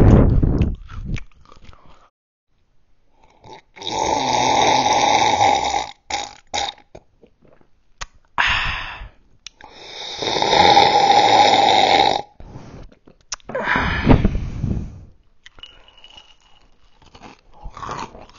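Drinking from a glass with a small microphone held right at the mouth: two long, loud stretches of gulping and slurping, with short burps between them.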